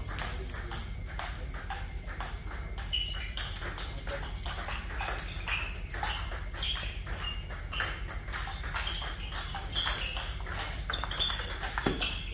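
Table tennis balls clicking off paddles and tables in quick irregular ticks, from rallies at more than one table, some clicks with a short high ping.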